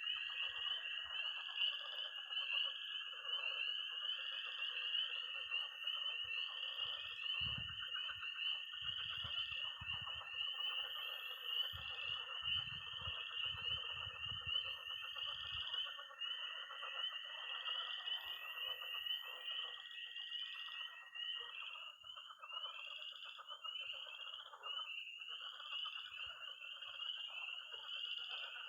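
Early-spring frog and toad chorus: peeping tree frogs (spring peepers) give high, short rising peeps over and over, toads hold long high-pitched trills, and pond frogs croak thickly beneath. A few faint low rumbles come through in the middle.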